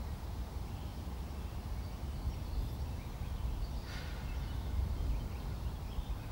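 Wind rumbling on a camcorder microphone, an uneven low buffeting, over faint open-air ambience.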